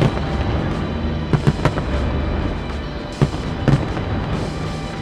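Aerial fireworks bursting: a bang at the start, a quick run of three about a second and a half in, and a few more bangs near three and four seconds in, with music playing underneath.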